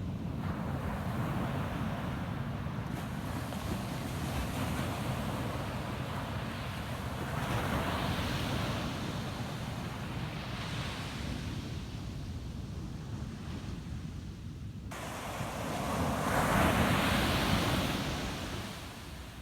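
Ocean surf: waves washing in as a continuous rush, swelling twice, the second and loudest wave breaking near the end. Wind rumbles on the microphone underneath.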